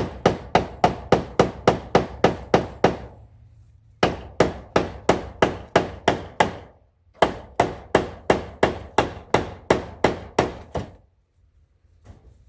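Hammer driving nails into old wood, in three quick runs of blows about four a second, with short pauses between.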